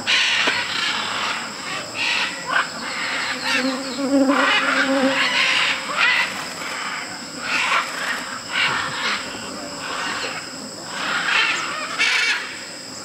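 A flock of scarlet and blue-and-yellow macaws giving harsh, overlapping squawks every second or so, over a steady high insect buzz.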